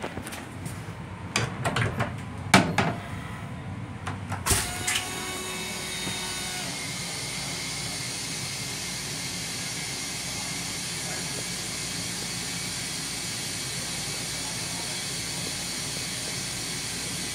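Long Island Rail Road M7 railcar toilet: a few clunks of the toilet seat being lifted, then about four seconds in a sharp click and the flush, a steady rushing hiss that carries on.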